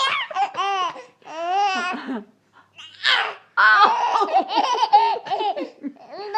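A baby girl laughing in repeated high-pitched bursts, with a short pause about halfway through.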